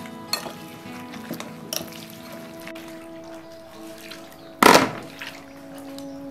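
Water splashing and running off in a metal basin as pieces of bitter gourd are washed by hand, with a loud splash about four and a half seconds in, over background music.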